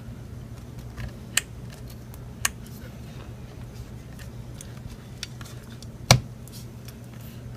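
Light clicks and taps from handling parts inside an opened MacBook Pro, with one sharper click about six seconds in, over a steady low hum.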